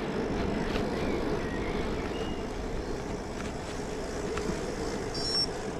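Bicycle rolling along an asphalt road: a steady rush of wind over the handlebar-mounted camera's microphone, mixed with tyre hum.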